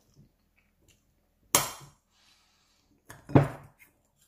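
Metal spoon knocking against a ceramic bowl twice, about two seconds apart, while scooping rice, each clink loud and dying away quickly.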